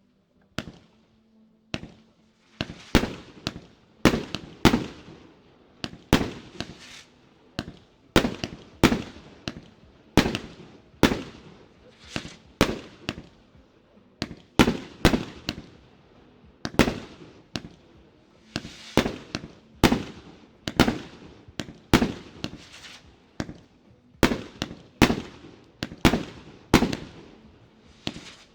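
A 36-shot, 1.2-inch fireworks cake firing its shells in sequence: a steady run of sharp bangs, often in close pairs, about one to two a second, each followed by a brief hiss.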